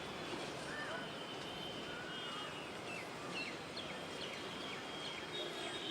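Open-air farmland ambience: a steady background noise with small birds chirping, short calls scattered throughout.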